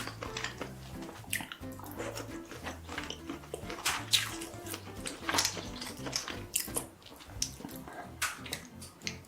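Close-miked wet eating sounds, many short slurps and chews one after another, over background music with a stepping bass line.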